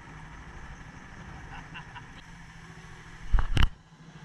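A steady low engine hum, broken about three and a half seconds in by two loud knocks close together.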